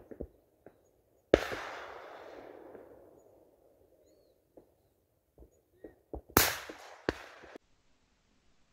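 Two shotgun shots about five seconds apart: the first report rolls away for about two seconds, and the second is followed by another sharp crack less than a second later before the sound cuts off suddenly.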